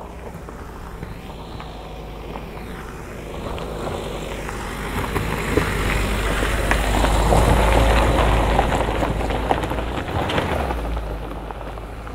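A motor vehicle passes by: its engine and tyre noise grows over a few seconds, peaks about eight seconds in, and fades away.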